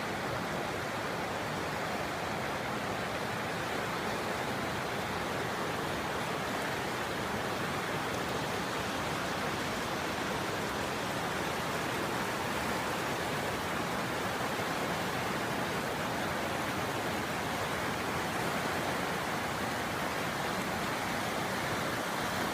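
Scott River in flood, its high water rushing in a steady, unbroken roar.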